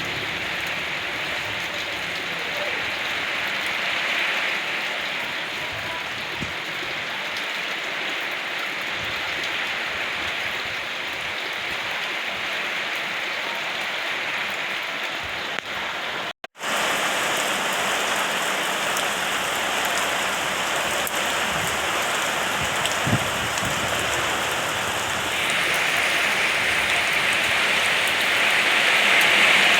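Steady rain falling, an even hiss. It cuts out for a split second about halfway through and comes back slightly louder, then grows heavier in the last few seconds.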